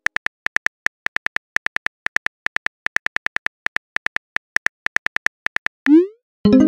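Phone keyboard click sound effect, a quick run of taps at about five a second as a text message is typed, then a short rising swoosh as the message is sent. Music with a synthesizer chord comes in just before the end.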